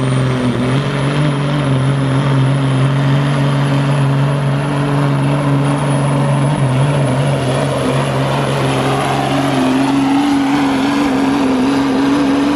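Pro street semi truck's diesel engine held at full throttle under heavy load as it drags a weight sled, a steady loud drone with a thin high whistle above it.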